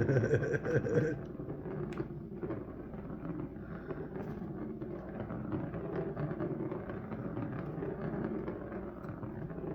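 A spinning cat toy running and rattling as the cat plays with it: a steady low rolling noise with many small clicks. A brief pitched, voice-like sound comes right at the start.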